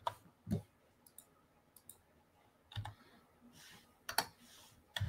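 Scattered clicks of computer keys being pressed, about eight in all at an uneven pace, some with a dull knock on the desk.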